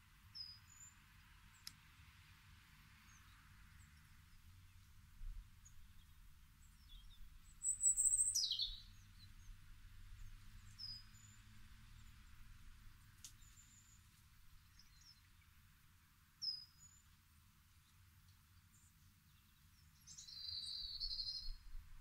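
Small songbirds calling with scattered short, high chirps. About eight seconds in, one loud call sweeps down in pitch, and a short twittering trill comes near the end, over a faint low rumble.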